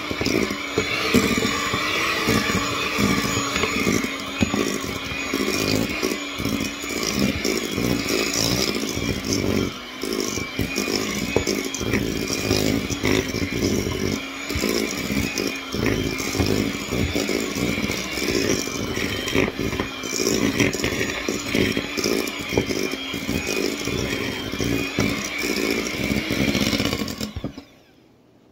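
Electric hand mixer running steadily, its beaters mixing cookie dough in a stainless steel bowl; it switches off about a second before the end.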